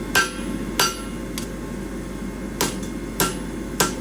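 Hammer strikes on steel bar, each blow ringing metallically: about six blows at a steady rhythm, with a short pause midway. The bar is being hammered straight.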